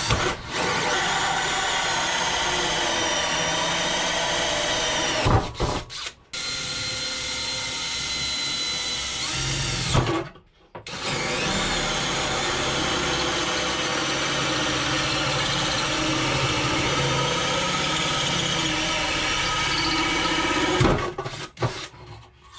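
Cordless drill boring a 1¼-inch centre hole, first through a plywood board and then through a barrel lid, its motor whine wavering in pitch under load. It runs in three long stretches, with brief stops about five and ten seconds in, and stops shortly before the end.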